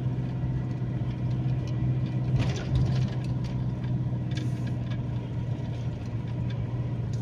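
Steady engine and road noise of a moving car, heard from inside the cabin, with a low hum and a few faint knocks about two and a half seconds in.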